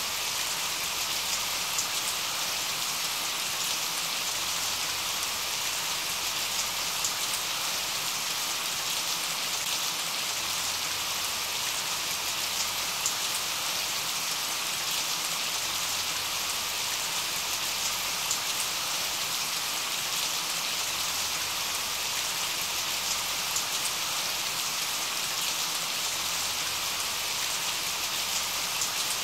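Steady rain falling, an even hiss with the odd louder drop.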